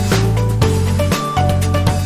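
Background music with a steady beat and a melody over a heavy bass line.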